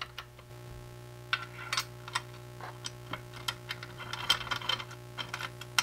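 Irregular light clicks and taps of an Allen key and metal frame rails being handled while the laser engraver's frame is bolted together. They start about a second in and get busier toward the end, over a faint steady hum.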